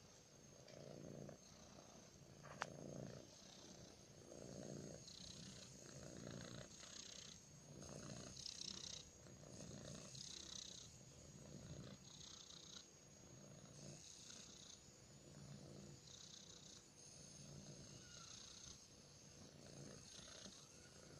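Siberian kitten purring softly while being stroked under the chin, the purr swelling and easing with each breath about every two seconds. One sharp click about two and a half seconds in.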